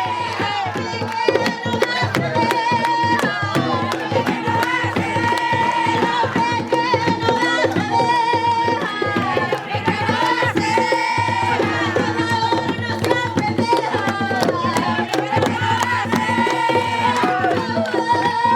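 Panamanian tamborito: drums beating a brisk, dense rhythm while women's voices sing phrases over it.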